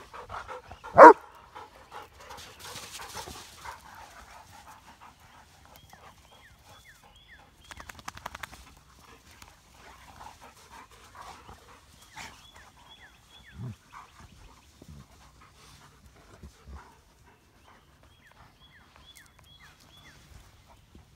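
A dog barks once, loud and sharp, about a second in. After that come quieter sounds of dogs playing in loose dirt: faint scuffles, panting and a few soft thumps.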